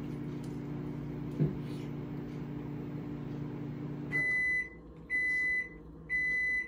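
Microwave oven running with a steady hum, which stops about four seconds in; it then beeps its end-of-cycle alert, a high single-tone beep about once a second, three times.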